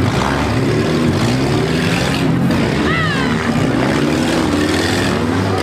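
Several small-car engines running and revving at once, their pitches rising and falling over one another. About three seconds in there is a brief high squeal that rises and falls.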